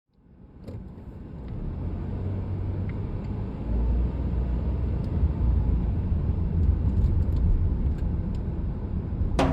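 Car driving, heard through a dashboard camera: a steady low road and engine rumble that fades in over the first couple of seconds, with a few faint clicks. Drum-led music starts right at the end.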